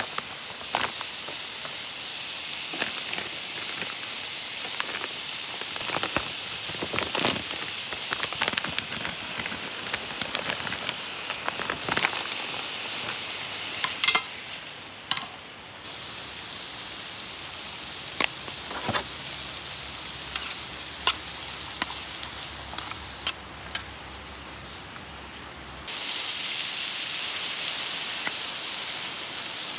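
Stir-fry sizzling in a wok on a camp stove, with scattered clinks and scrapes of a metal spoon and the tossing pan. Near the end the sizzle jumps suddenly louder and brighter as liquid is poured from a bottle into the hot pan.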